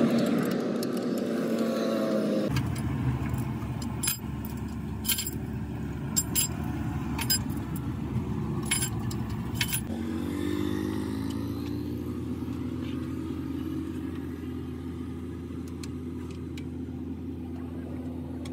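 Metal engine parts and tools clinking as valve gear is handled on a truck's diesel cylinder head: about half a dozen sharp clinks in the middle stretch, over a steady low hum.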